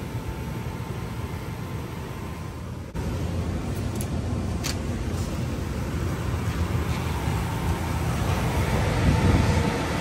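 Gas furnace running with a steady rumble, broken by a short cut about three seconds in.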